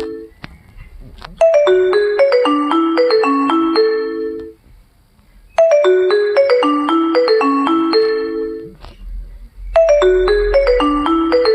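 Nokia mobile phone ringtone playing a short melody of quick, bright notes, repeated about every four seconds with short pauses between repeats.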